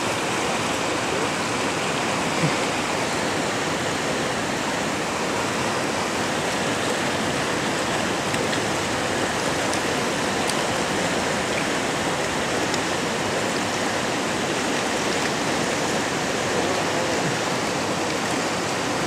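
Fast-flowing river rushing over stones: a steady, unbroken rush of water.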